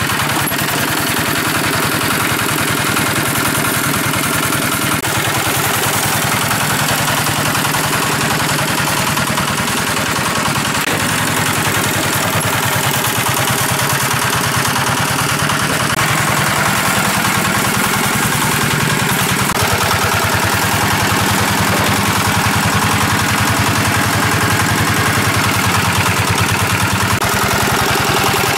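Engine of a large water pump running steadily with a rapid, even firing beat as it draws water out of a lake.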